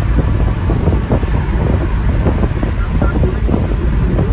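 Steady road and wind noise of a car driving at speed, heard inside the cabin, with a heavy low rumble.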